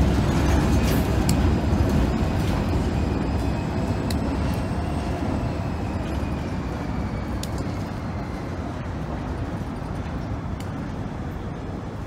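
Slow-moving freight train of hopper cars rolling on the rails, a low rumble with scattered clanks and a faint thin wheel squeal, fading as the cars move away.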